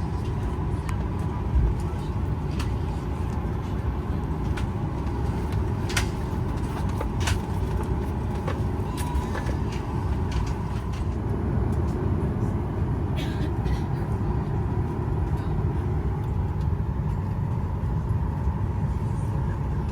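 Steady low rumble of a Boeing 737-900ER cabin during boarding, the air-conditioning and ventilation running with a faint steady whine above it. A few sharp clicks and knocks break through now and then.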